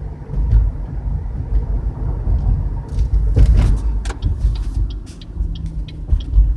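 Inside the cabin of a 2013 Chevrolet Impala on the move: a steady low road drone and hum, which the owner takes for a bad front wheel bearing on the driver's side, humming louder with road speed. A brief bump or rustle about three and a half seconds in, then a regular light ticking about three times a second.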